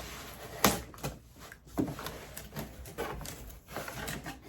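A cardboard shipping box being pulled open and handled: rustling with scattered knocks and clicks, the sharpest about 0.7 s in.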